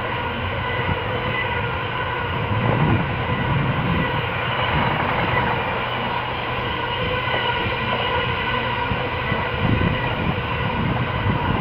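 GB Railfreight freight train of covered hopper wagons rolling steadily past, a continuous rumble of wheels on rail with faint steady tones. There are a few louder low knocks about three seconds in and again near ten seconds.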